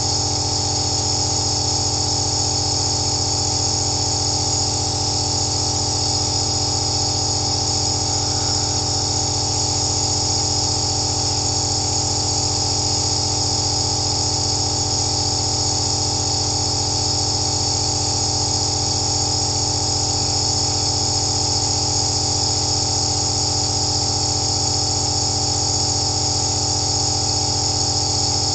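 Compressor nebulizer running, a steady hum with a high hiss that does not change, as it turns liquid medication into a mist through a face mask.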